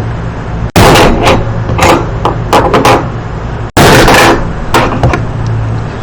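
Hammer blows on a plastic phone charger: two heavy, very loud strikes about three seconds apart, with lighter knocks and taps between them.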